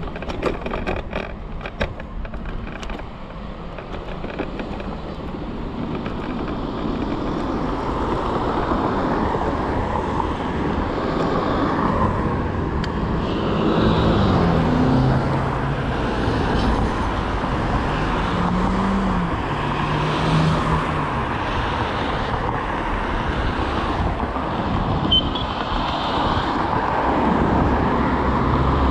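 Road traffic: cars driving past, with engine notes rising and falling about halfway through. A few sharp clicks come in the first seconds.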